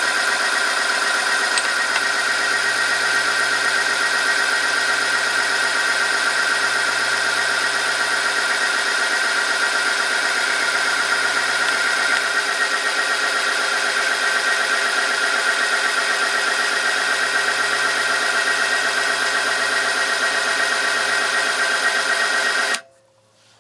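Oil film strength test machine running under a weighted load: its electric motor turns the steel test ring against the sample lubricated with Total Quartz Ineo First 0W-30 engine oil, giving a loud, steady, high rubbing whine. It cuts off abruptly near the end as the machine is switched off.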